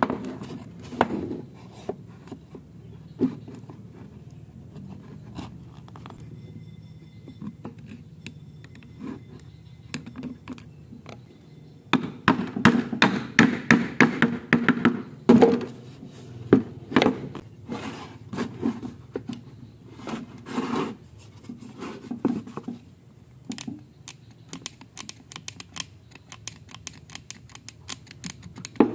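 A hammer taps a pallet-wood slat into a notched wooden joint. There is a fast run of sharp wooden knocks about twelve seconds in, lasting a few seconds, then slower single knocks. Lighter knocks and the rubbing of wood pieces being handled come before and after.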